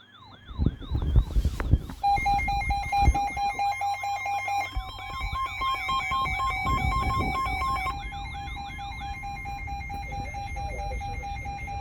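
Electronic siren yelping in rapid repeated pitch sweeps. About two seconds in, steady beeping alert tones join it. The sweeps stop near the end while the tones carry on, all over a low rumble.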